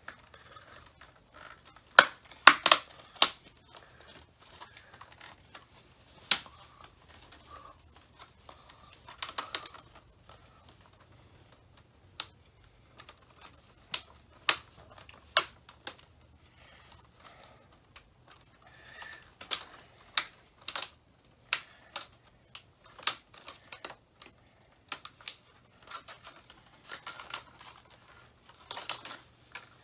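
Irregular sharp plastic clicks and taps, singly and in small clusters, as a laptop's display panel is worked loose and handled, over a faint steady low hum.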